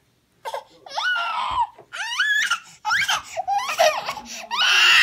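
Toddler crying in a string of drawn-out, rising wails, the loudest beginning near the end.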